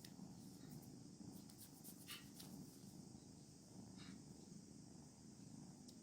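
A cat purring softly and steadily, with a few faint clicks or rustles around it.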